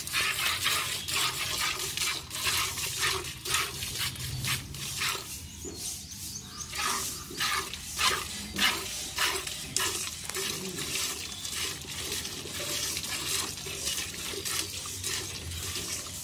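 Hand-milking a cow: jets of milk squirting into a metal pail partly full of milk, spurt after spurt in a steady rhythm, a few squirts a second.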